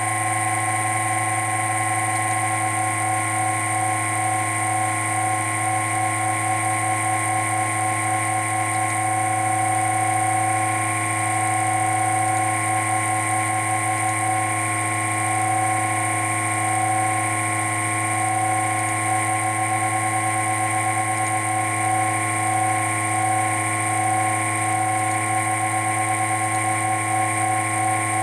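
Sapphire Radeon HD 5870 graphics card's squirrel-cage blower fan running with a steady, loud whine of several pitched tones that waver slightly. Its bearing is loose, letting the fan jiggle from side to side, which makes the annoying noise.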